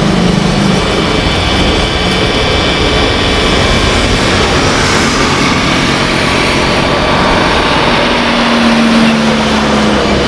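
Airbus A330-300's twin Rolls-Royce Trent 700 turbofans at takeoff power during the takeoff roll: a loud, steady jet noise with a faint high whine.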